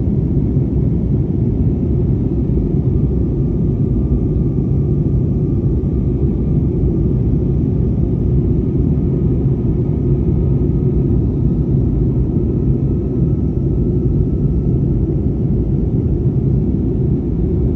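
Jet airliner cabin noise in flight: a steady, even rumble with a faint thin whine running through the middle of it.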